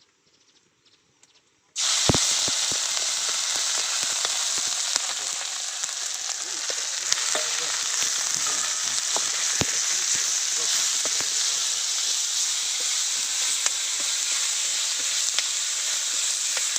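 Pad kra pao ingredients stir-frying in hot oil: a loud, steady sizzle that starts abruptly about two seconds in, with occasional sharp clicks.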